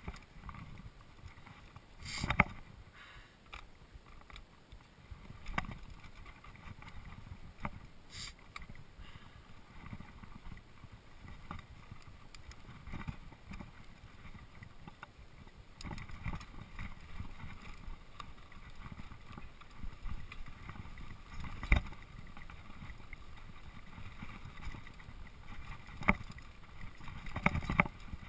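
Mountain bike rolling down a dirt singletrack: steady tyre rumble and bike rattle, broken by sharp knocks over bumps, the loudest about two seconds in and again a little past the middle.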